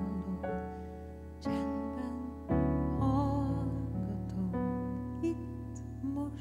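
Stage piano playing slow, sustained chords in a quiet ballad. A new chord is struck every second or two and left to ring out.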